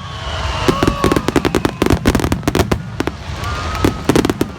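Fireworks going off in a rapid, dense string of sharp bangs and crackles, some with short whistling glides.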